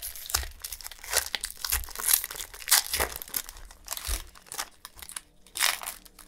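Foil wrapper of a Magic: The Gathering booster pack crinkling and tearing as it is handled and opened, in irregular crackles.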